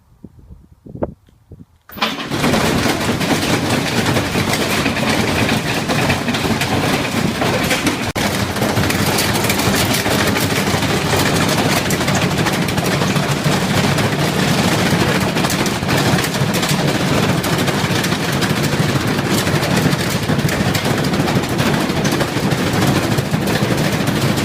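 A loud, continuous mechanical clatter that starts suddenly about two seconds in, dense with rapid knocks.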